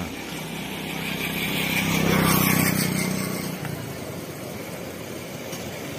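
A motor vehicle passing close by: its engine hum grows louder to a peak about two seconds in, then fades away.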